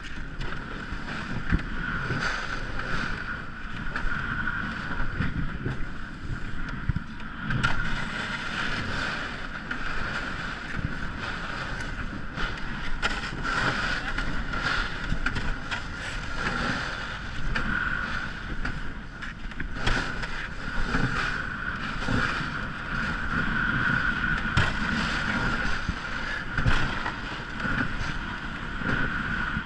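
Ice canoe moving on the river: wind on the microphone and water noise with scattered knocks, over a steady high-pitched hum.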